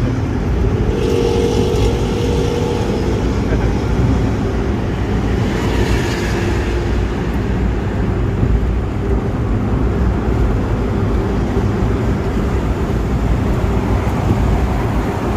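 Diesel engine of a front-engined Hino bus running steadily, with the deep, rasping 'snoring' (ngorok) exhaust note.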